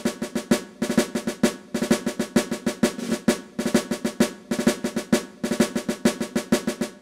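Intro music of rapid snare drumming with rolls over a low drum tone, stopping near the end.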